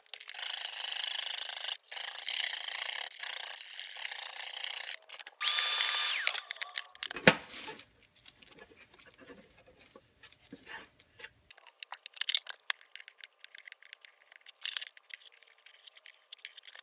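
A small power tool running steadily with a faint whine for about five and a half seconds, briefly louder and higher just before it stops. About seven seconds in comes one sharp knock, then scattered light clicks and taps.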